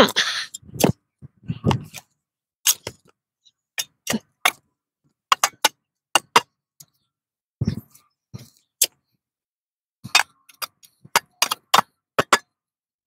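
Shovel scraping and knocking as dirt is shovelled and worked into a tyre: a string of short, irregular scrapes and knocks with gaps between them, and a duller thud a little past halfway.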